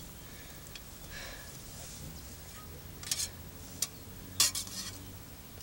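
A metal spoon clinking and scraping in a stainless steel mug, with a few sharp clinks in the second half.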